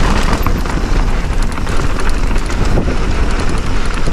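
Mountain bike riding fast down a dirt trail: tyres rumbling over the ground and the bike rattling and clicking over the bumps.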